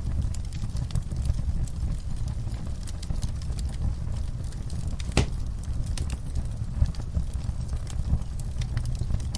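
Wood logs burning in a fireplace: a steady low roar of the flames with frequent crackles and small pops, and one sharper pop about halfway through.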